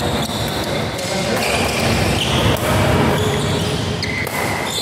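Badminton doubles rally: rackets striking the shuttlecock and players' shoes thudding and squeaking on the court, with short high squeaks here and there.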